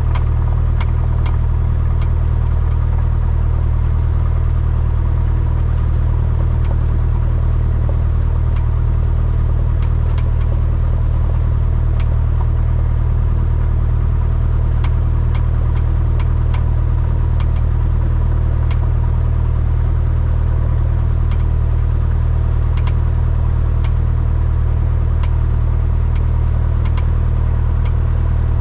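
Cessna 172N's four-cylinder Lycoming piston engine and propeller running at a steady power setting, a constant low drone.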